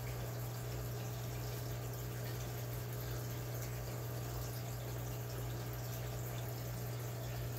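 Aquarium filter outflow splashing steadily into the tank water, over a steady low hum.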